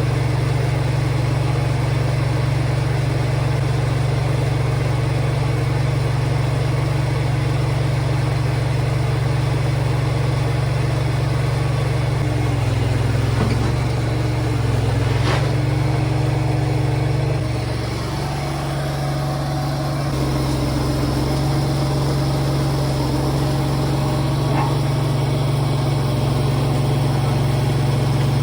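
Engine of a small working machine running steadily, its speed dropping and shifting a few times partway through as the load changes, with a sharp click about halfway.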